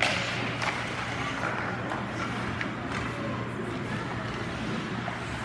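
Game-time ambience: indistinct voices and chatter over a steady low hum, broken by several sharp knocks, one at the very start and a cluster about two to three seconds in.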